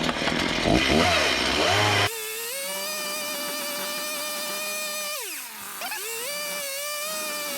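Chainsaw cutting into wood, then after an abrupt change about two seconds in, running at high speed with a steady whine that dips in pitch once in the middle and comes back up.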